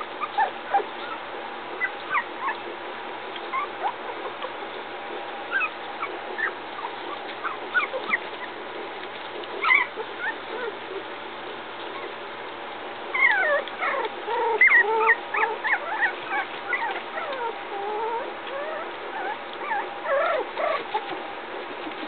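Three-week-old puppies whimpering and squeaking in short high cries, scattered at first, then many overlapping from a little past halfway.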